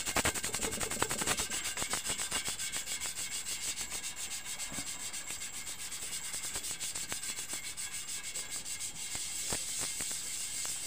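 Sandpaper rubbed by hand in rapid, even back-and-forth strokes on the glass of a CRT picture tube around the high-voltage anode cap hole, scuffing the glass so silicone sealant will stick.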